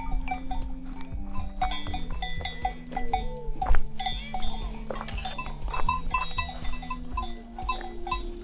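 Cowbells on a herd of grazing cows clanking continually, many overlapping bells struck at an irregular pace.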